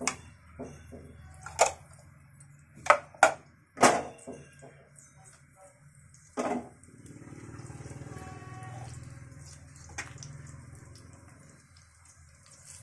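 About five sharp clanks of a nonstick frying pan and utensils on a gas stove in the first seven seconds, as the pan of cumin seeds in hot oil is moved on the burner.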